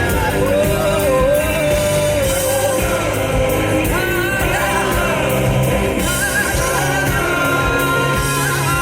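Live band playing a rock song, with long held and gliding vocal or lead notes over drums and cymbals.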